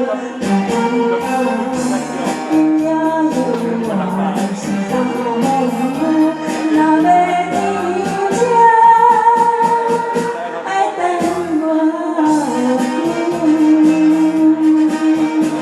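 A woman singing a Taiwanese Hokkien ballad over a karaoke backing track with a steady drum beat. Her voice is hoarse and tight, and strains on the high notes.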